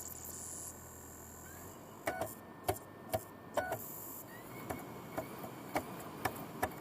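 Computer CD drive whirring with a high whine that stops just under a second in, then about ten sharp clicks at roughly two a second, with a short high whir midway.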